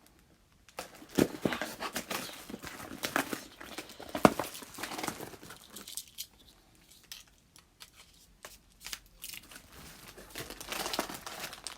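A small cardboard box being cut and torn open with a knife: irregular tearing and crinkling of the packaging, with a few sharp knocks, the loudest about a second in and about four seconds in.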